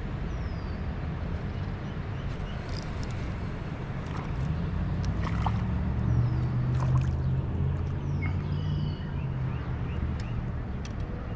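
A small sunfish splashing on the surface as it is reeled to a kayak and lifted out of the water, with a few sharp clicks, over a steady low rumble. A few short high chirps that drop in pitch, from small birds, come through now and then.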